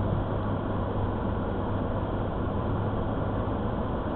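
Steady drone inside a car's cabin: engine and road noise with a constant low hum.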